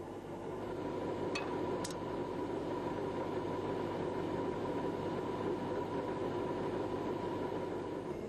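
Steady running noise of a Fuchs armoured vehicle. A faint steady high whine comes in about a second in, with two light clicks soon after.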